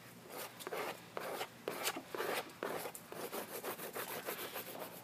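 Quick rubbing strokes of paint being scrubbed across a painted canvas on an easel, two or three strokes a second in an uneven rhythm.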